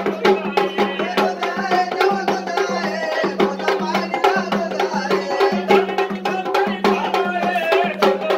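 Gondhal folk music: men singing to a fast, steady beat from sambal drums, over a continuous drone.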